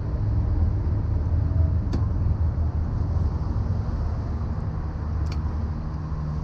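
Steady low rumble with a hiss above it, and two faint ticks, one about two seconds in and one about five seconds in.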